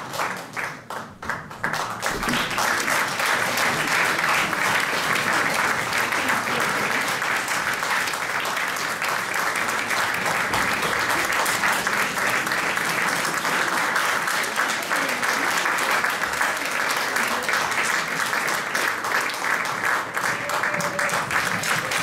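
Audience applauding. The clapping thins out briefly near the start, then swells about two seconds in and keeps on steadily.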